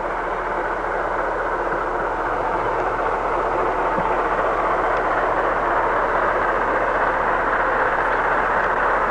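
New Zealand Railways steam locomotive J1211 and its train running past at a distance, heard as a steady rushing sound that grows slowly louder.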